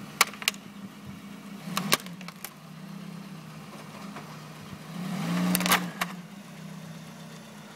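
Car engine running at low revs while its tyre rolls over a plastic computer keyboard, with a few sharp cracks and clicks of the keyboard under the wheel. About five seconds in the engine revs up briefly and a short cluster of cracks follows as the car moves off it.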